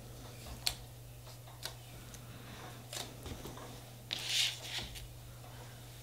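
Faint clicks and handling noises of a nail-stamping stamper and metal stamping plate being handled on a table, with a short rustle about four seconds in. A low steady hum sits underneath.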